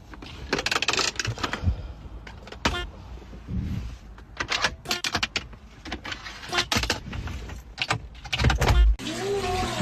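A series of irregular sharp knocks and clatters over a low rumble, with a louder heavy thump near the end.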